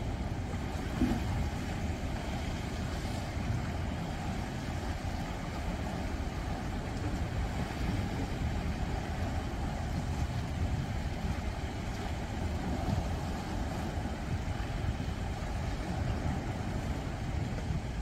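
Sea waves washing against the breakwater rocks: a steady rush of surf with a deep rumble underneath.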